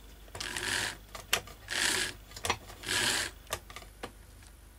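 Small electric motor and gears of a PIKO DB118 N gauge model diesel locomotive whirring in three short bursts about a second apart, with sharp clicks in between, as power is applied on the test track after cleaning and oiling. The loco runs: the freed-up mechanism works.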